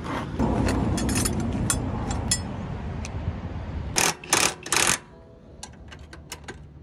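Mounting bolts of an aluminium tow hook being threaded and tightened, with small metal clicks and rattles. About four seconds in come three short, loud rasping bursts from a ratchet wrench being spun, and then faint clicks again.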